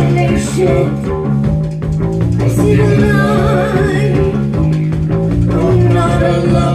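Live band playing loud: electric guitars, bass and drums, with a woman singing.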